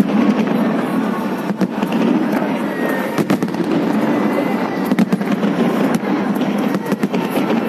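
Aerial fireworks display with many shells bursting at once. A dense, continuous crackle is broken by sharper bangs every second or two.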